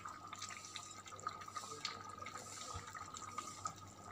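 Crab gravy boiling in a pan, faint small pops and plops of bubbles, with light splashes as raw crab pieces are dropped into the liquid.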